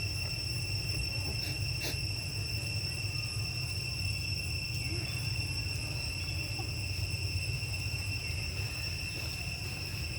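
Forest insects droning with a steady, unbroken high-pitched tone, over a constant low rumble. Two short clicks come about a second and a half and two seconds in.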